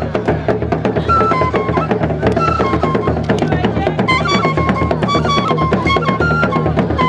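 Traditional Gourounsi funeral drums played in a fast, dense rhythm, with a high melody stepping between a few held notes above them.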